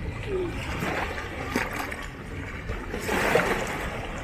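Small sea waves lapping and splashing against shoreline rocks, with a louder wash about three seconds in.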